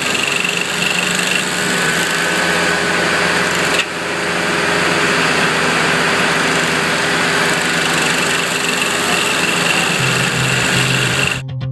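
Morbark G42SP stump grinder running steadily at speed, its engine hum mixed with a broad mechanical rush, with a brief break about four seconds in. Music with guitar takes over just before the end.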